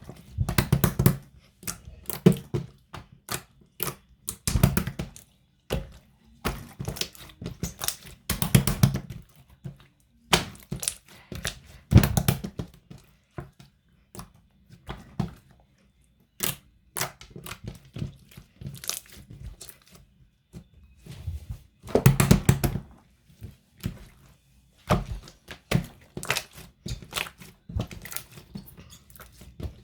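Hands squeezing and poking a jiggly slime: irregular bursts of wet squishes, thunks and crackles, with short pauses between handfuls.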